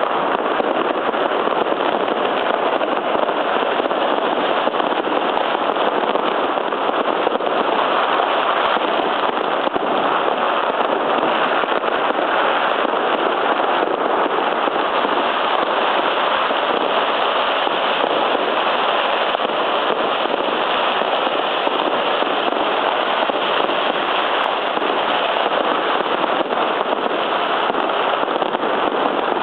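Fireworks and firecrackers going off all around without a break: so many overlapping bangs and crackles that they merge into one steady, dense din.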